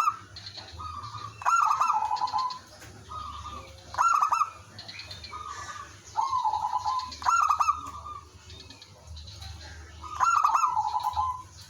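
Zebra doves cooing: a loud, stuttering, rippling song phrase repeats about every three seconds, with softer answering coos in between. The caged bird is singing as a lure, drawing replies from other doves.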